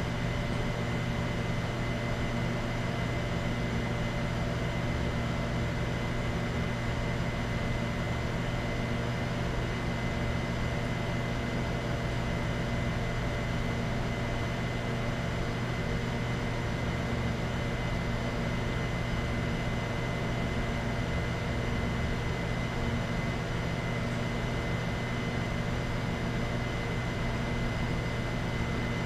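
Steady machine hum with a faint high whine over an even hiss.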